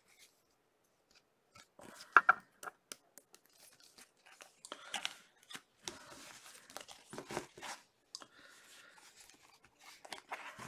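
Trading cards in clear plastic holders being handled and shuffled together: irregular rustling and light plastic clicks, starting about two seconds in.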